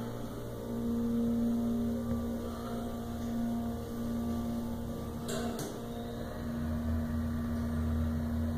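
Armor hydraulic elevator running: its power unit gives a steady low hum with a fixed tone above it. A single short click comes about five seconds in.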